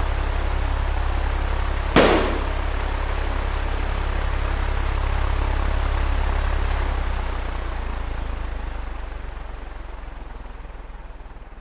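Steady low rumble and hiss of an airplane in flight, cut by one sharp, loud bang about two seconds in. The rumble fades away over the last few seconds.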